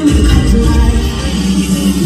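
Loud music with a heavy, booming bass line played over a car sound system.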